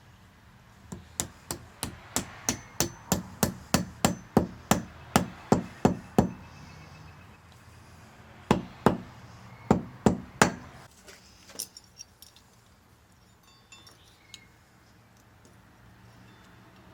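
Hand hammer strikes in a steady run of about seventeen blows, roughly three a second, then a short pause and five more blows. A few light metallic clinks follow near the end.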